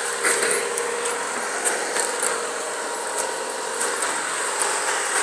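Tractor-trailer's diesel engine idling steadily, heard as the cab door is opened and the driver climbs out, with a few light knocks and clicks along the way.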